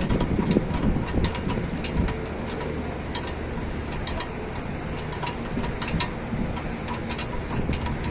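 Scattered, irregular sharp clicks of hand tools working on a car's stabilizer bar link, over a steady background rush of noise.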